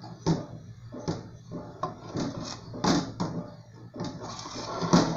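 Aluminium pudding pan knocking and scraping on the gas stove's metal grate as it is tilted and turned to coat it with hot caramel: irregular clicks and knocks, the loudest about three seconds in and near the end.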